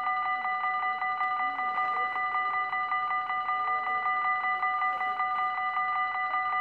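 Dutch level-crossing warning bell ringing rapidly and evenly, about seven strokes a second, signalling that a train is approaching.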